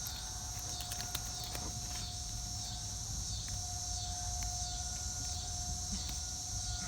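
Distant Federal Signal 2001-SRNB outdoor warning siren sounding one steady held tone, growing a little louder near the end. Insects chirp steadily over it.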